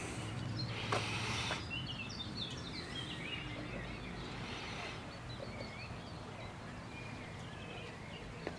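Outdoor ambience of small birds chirping and calling over a faint, steady low background noise, with a brief rustle about a second in.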